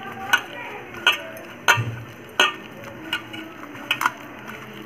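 Hand mixing a thick curd, flour and spice marinade in a steel bowl, with a sharp clink on the bowl about every three-quarters of a second as the hand and wrist knock against it.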